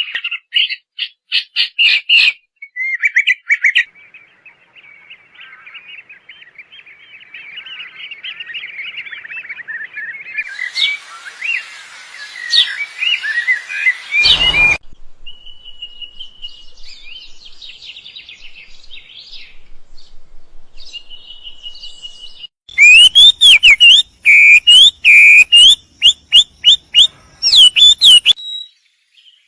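Wild songbirds singing: a varied run of chirps, trills and whistled notes. Near the end comes a very loud, rapid series of sharp call notes.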